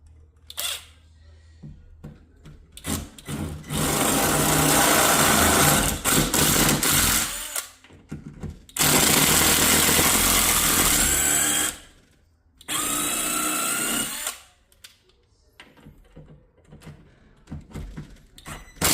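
Power drill with a large bit boring through a door to widen the hole for a door handle's post. It runs in three bursts of a few seconds each, the first the longest, with small clicks and knocks between them.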